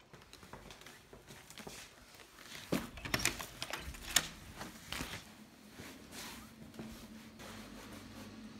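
Scattered soft knocks, clicks and rustles of people moving about in a small room, densest two to five seconds in. A faint steady low hum comes in near the end.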